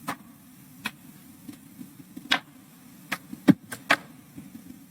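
A scattering of sharp, irregular clicks and taps, about eight in all, over a low steady hum.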